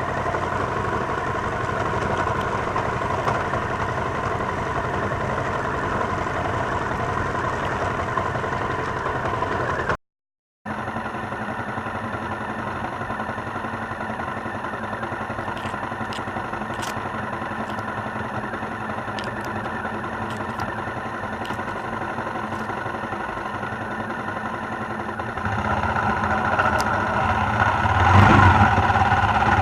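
Suzuki XF650 Freewind's single-cylinder engine running steadily, with a short break in the sound about a third of the way in; near the end it gets louder as it revs up.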